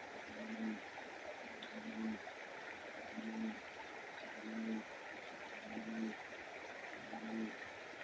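Steady rush of a creek, with a short low tone repeating evenly about every second and a quarter.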